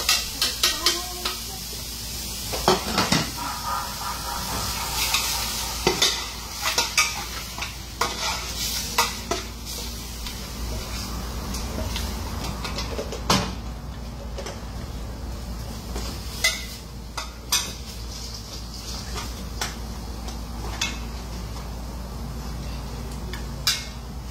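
Beef sizzling as it fries in a large metal pot, with a spoon stirring it and knocking and scraping against the pot in frequent sharp clinks.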